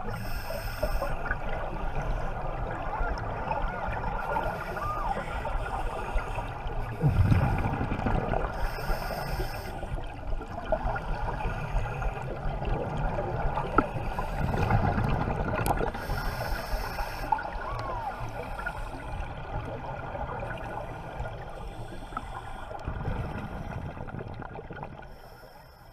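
Underwater sound of scuba divers breathing through their regulators: a continuous bubbling wash, with louder bursts of exhaled bubbles about every seven or eight seconds and short hisses of inhalation between them. It fades out near the end.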